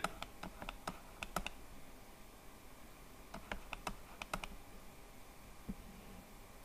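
Two short runs of light, quick clicks at a computer, like keys being pressed: one at the start and another about three seconds later, over faint room noise.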